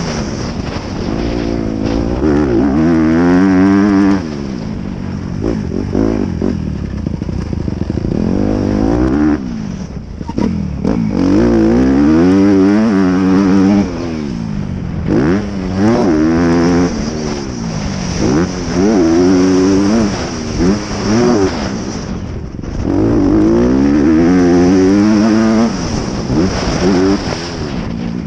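Honda CRF250R's single-cylinder four-stroke engine, heard from on the bike, revving up and backing off again and again as the rider accelerates and rolls off the throttle, its pitch climbing and dropping every few seconds.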